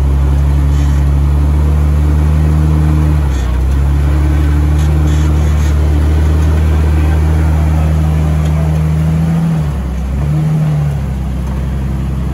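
Jeep Wrangler Rubicon's engine running steadily at low revs as it crawls over a rock ledge. The engine note dips briefly about three seconds in, and again near ten seconds in, where it settles lower afterwards.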